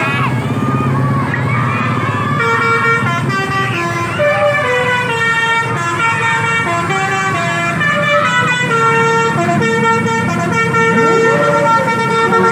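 Bus telolet horn (Basuri multi-tone horn) playing a tune: steady horn notes that step from pitch to pitch, starting about two seconds in.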